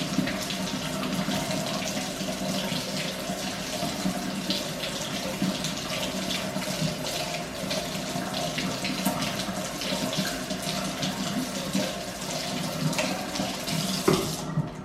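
Kitchen tap running a steady stream of warm water over frozen açaí smoothie packets, the water splashing into the sink, to thaw them slightly. The running water cuts off near the end.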